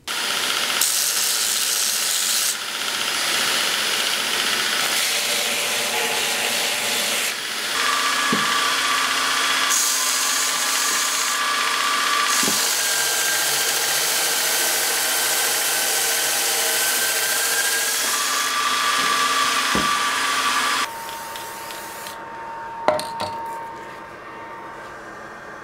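Belt grinder running with a pattern-welded steel pommel block ground against its abrasive belt, a steady loud grinding noise that changes abruptly several times. About 21 seconds in it stops, leaving a quieter background with one sharp click.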